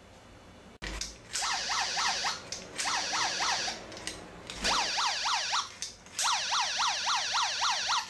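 Small electronic alarm built into a sliding-window security lock, sounding a rapid warbling siren of quick rising-and-falling tones in three bursts, after a click about a second in.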